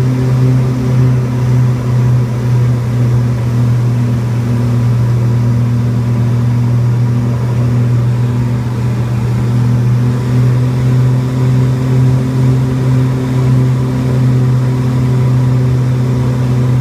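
A de Havilland Canada DHC-6 Twin Otter's two PT6A turboprop engines and propellers droning in flight, heard inside the cabin. It is a loud, steady, low drone with a fainter, higher steady tone above it.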